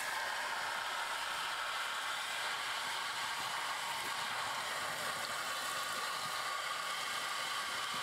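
Kitchen sink sprayer running steadily, water splashing through a dishwasher's fine filter and onto a stainless steel sink and drain: a constant hiss.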